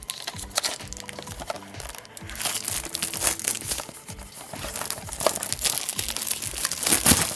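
Crinkling and tearing of a Panini trading-card box and its pack wrappers as they are opened by hand, loudest near the end, over background music with a steady beat.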